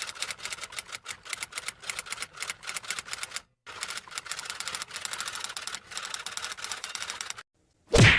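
Typewriter typing sound effect: rapid, uneven key strikes with a brief pause partway through, then a single loud clack near the end.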